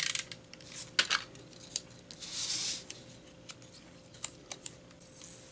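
Paper crafting handling noises: patterned cardstock and a paper strip rubbing and sliding over a cutting mat, with a sharp click about a second in and a few light ticks and taps later.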